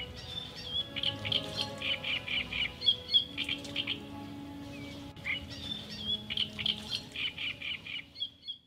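Songbird chirping in quick phrases, in two bursts with a short gap between them, over soft music with held notes.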